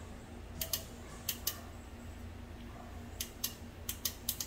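Honda VTEC spool-valve solenoid clicking as 12 volts from the battery is tapped onto its terminal with a jumper wire: about ten short sharp clicks, often in quick pairs, over a low steady hum. The clicking shows the solenoid and valve are moving.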